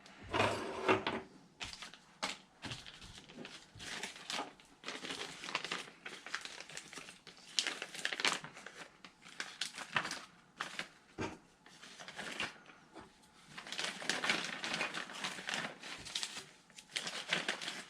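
Plastic packaging and parts bags crinkling and rustling while being handled, in irregular bursts mixed with small clicks and knocks.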